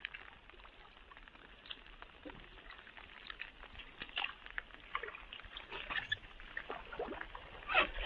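Canoe paddles dipping and pulling through calm water, making an irregular patter of small splashes and drips, with a louder splash just before the end.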